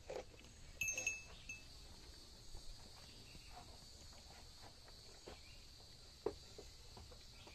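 Goats biting and chewing a watermelon half, giving faint wet crunches and clicks. A small bell on a goat's collar rings briefly about a second in, and one sharp click comes a little after six seconds.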